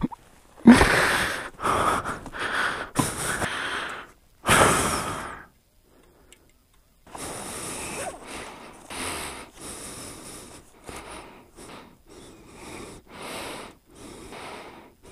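A man's heavy breaths and sighs, loud in the first five seconds. After a short pause come softer, quicker rustling sounds of jacket fabric and a backpack being handled and searched.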